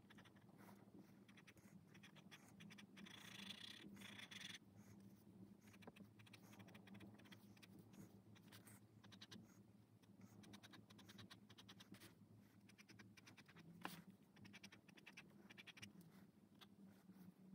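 Faint scratching of a fine-tip ink pen on sketchbook paper in quick, repeated hatching strokes, over a low steady hum.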